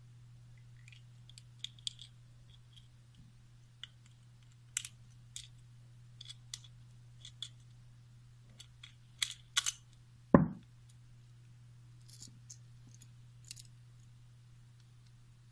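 Small screws being undone with a screwdriver from a plastic flow-sensor housing and the housing pulled apart: scattered light clicks and scrapes of metal on screw heads and plastic parts, with one loud thump about ten seconds in.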